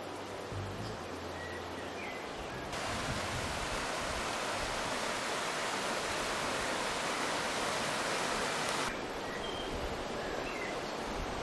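Steady rush of river water, a little louder and brighter for several seconds in the middle.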